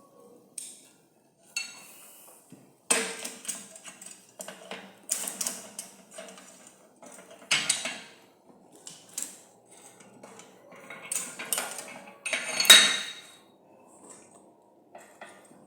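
Irregular clanks and scrapes of metal wire being handled and knocked about, several clusters of them, the loudest near the end.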